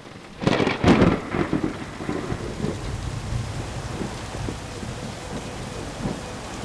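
A rumbling roll of thunder about half a second in, then steady rain.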